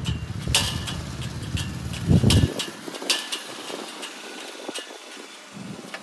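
Hand file scraping across the teeth of a stationary band saw blade in short, unevenly spaced strokes, as the blade is sharpened by hand. A low rumble runs under the first half and stops about two and a half seconds in.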